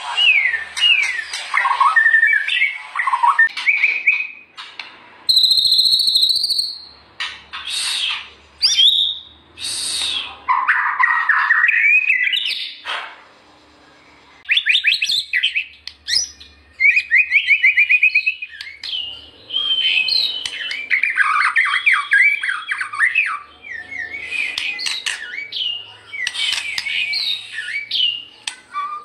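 White-rumped shama (murai batu) singing a varied, loud song: clear whistles, rapid trills and sweeping rising and falling notes in quick phrases separated by short pauses.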